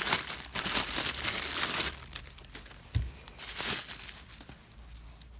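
Packaging being unwrapped by hand, crinkling and tearing, loudest in the first two seconds. There is a short dull thump about three seconds in, then a brief second rustle.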